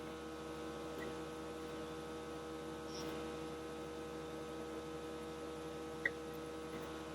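Steady electrical hum made of several fixed tones, with three faint, short ticks along the way.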